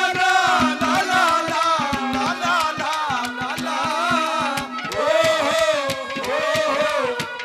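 Haryanvi ragni accompaniment playing an instrumental passage: a wavering, gliding melody over fast, steady hand-drum strokes and a held low note.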